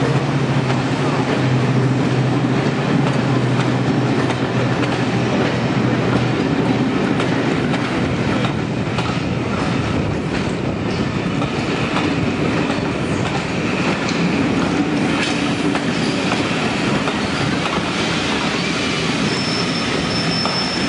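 Passenger coaches rolling past at low speed behind Class 55 Deltic 55022. The locomotive's steady Napier Deltic engine drone fades out over the first few seconds as it draws away. Then come wheels clattering over rail joints and a high wheel squeal near the end.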